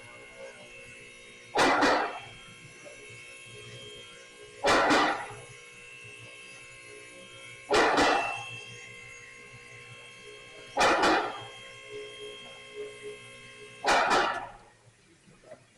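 Vehicle lift raising: its electric hydraulic pump motor hums steadily, and about every three seconds there is a loud clack with a short rattle, like the safety locks dropping over each notch of the posts.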